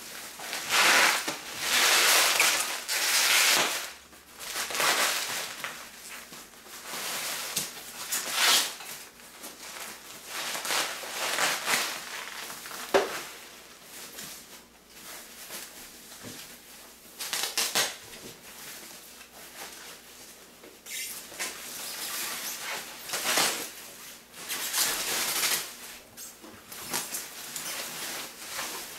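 Bubble wrap and foam packing sheets rustling and crinkling as they are pulled off by hand, in irregular bursts, with a sharp click about 13 seconds in.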